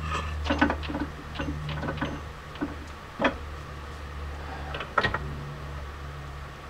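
Scattered metallic clicks and knocks from a metal lathe being handled with the spindle stopped, as the chuck is turned by hand and the tool post handle is worked. The loudest knock comes about five seconds in, over a steady low hum.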